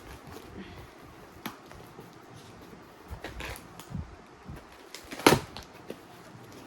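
Plastic parcel packaging being handled and picked at: scattered crinkles, rustles and small taps, with one loud sharp crack a little over five seconds in.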